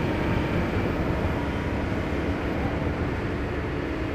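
Heavy diesel engine running steadily at a constant speed, a low even drone.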